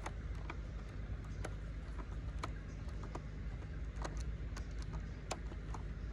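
Scattered light clicks and taps, about one or two a second at irregular spacing, as the laptop's plastic casing and small parts are handled, over a steady low hum.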